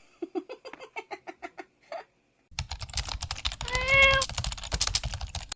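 A rapid run of short, pitched clicks for about two seconds. After a brief gap comes loud rustling and bumping from handling, with a cat's single short meow about four seconds in.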